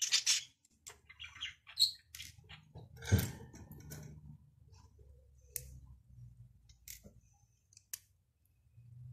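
Plastic Lego bricks being handled and pressed together: a scatter of short, sharp clicks and small rattles at irregular intervals.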